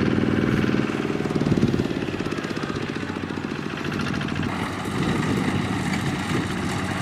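Kubota DC-70 combine harvester's diesel engine and threshing machinery running steadily while harvesting rice, easing slightly in level about a second in.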